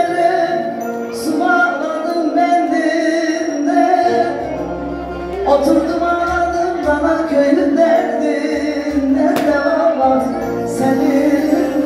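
Music: a song with a woman singing a sustained melody over instrumental backing, punctuated by a few sharp hits.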